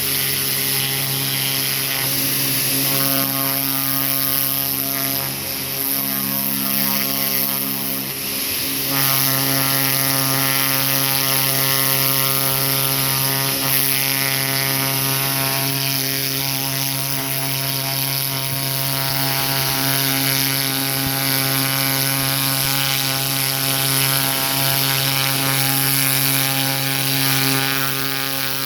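Pressure washer running steadily: a motor drone with the hiss of the water jet spraying from its turbo tip. It gets a little louder about nine seconds in.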